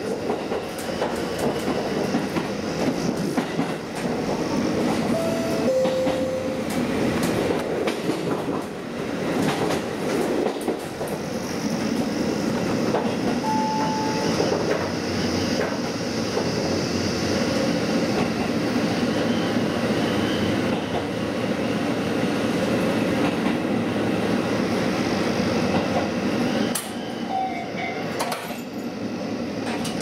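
KiHa 40 diesel railcar under way, heard from the driver's cab: a steady running rumble of engine and wheels on the rails, with clicking over rail joints and a few brief high tones.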